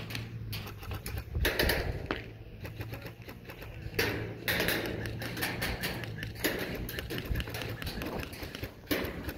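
Airsoft guns firing, rapid runs of sharp clicking shots in several bursts.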